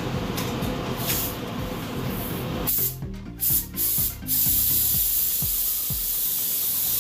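Paint spray gun hissing, spraying reduced black paint: three short trigger spurts about three seconds in, then a steady spray to the end. A steady low hum comes before the spurts.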